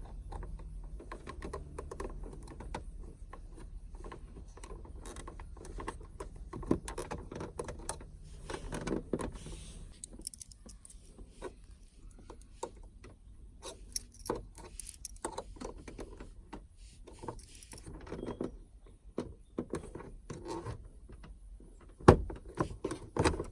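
Small metal flathead screwdrivers clicking and scraping against a truck's 12-volt power outlet while its tabs are pressed and its inner workings pried out, with a low hum at first and a couple of sharper knocks near the end.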